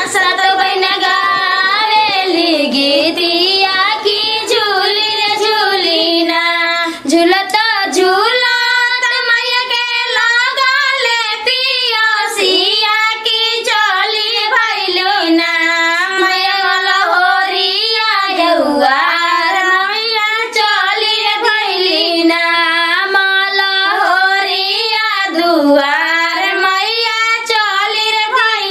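Music: one loud melody line that wavers and slides in pitch, nearly without pause, over a steady low drone.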